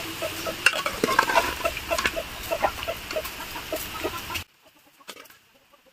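Domestic hens clucking in a steady series of short, repeated calls, with a few clinks and scrapes of a steel ladle against steel pots as chicken pieces are spooned in. The sound drops away abruptly about four and a half seconds in, leaving only faint sounds.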